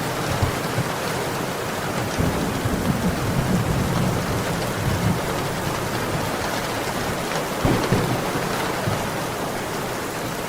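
Steady heavy rain, a dense even hiss with scattered drop ticks, and a low rumble swelling up in the middle and once more briefly near the end.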